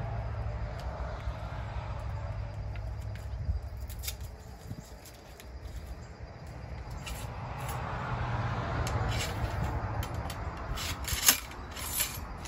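Muzzle-loading a Model 1861 Springfield rifle musket: rubbing and scraping at the muzzle and a steel ramrod in the barrel, with scattered sharp metallic clicks, the loudest near the end as the ramrod is drawn out. A low steady rumble lies under it.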